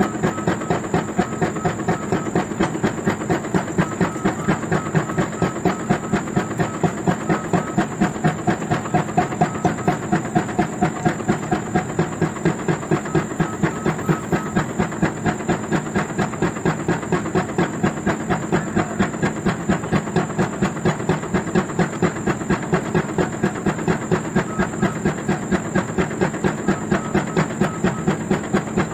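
Pile-driving rig's hydraulic impact hammer striking a precast concrete pile over and over, driving it into the ground. The blows come in a fast, even rhythm of a few each second, over the steady running of the rig.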